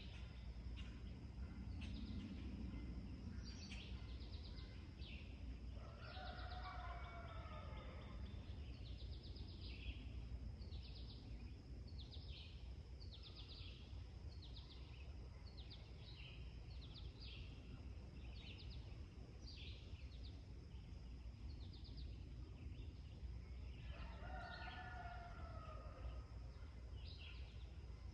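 Farmyard dawn ambience: small songbirds chirping over and over, with a rooster crowing twice, about six seconds in and again near the end, over a steady low rumble.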